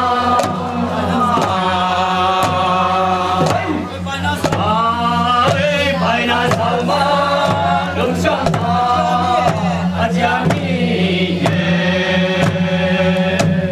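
A group of men and women chanting a song together, with sustained notes that slide between pitches, to strokes on hand-beaten barrel drums.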